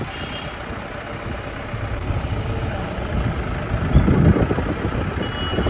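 A vehicle engine running with a low rumble that swells louder about four seconds in.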